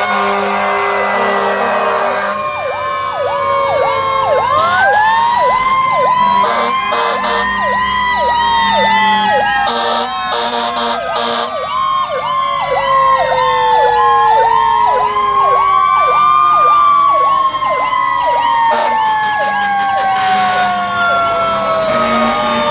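Several fire engine sirens sounding together as the trucks pass: slow wails rising and falling over a few seconds overlap a fast, repeating yelp. A low steady horn tone sounds at times.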